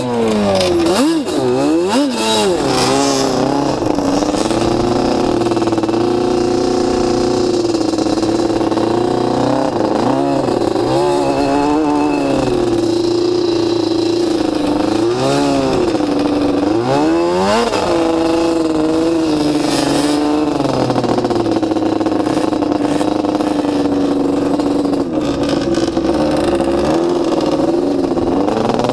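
Sport quad (ATV) engine running under load across sand, its pitch rising and falling again and again as the throttle is opened and closed.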